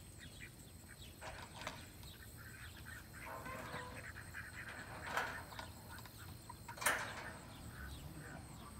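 Birds calling: a run of short calls throughout, with two louder, harsh calls about five and seven seconds in.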